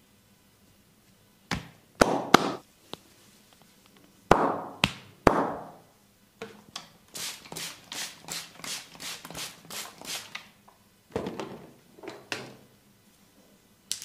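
A masseur's hands striking the body in percussive massage strokes. There are a few sharp slaps, then a quick run of rhythmic tapping strokes at about three or four a second, then two more slaps near the end.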